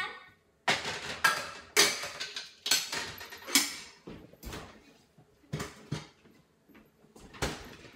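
Kitchen clatter: a series of irregular knocks and clinks of kitchenware being handled, about eight or nine separate hits with short gaps between them.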